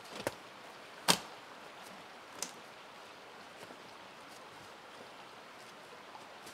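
Dead wooden poles knocking against each other as one is stood upright into a log shelter wall: three sharp knocks, the loudest about a second in.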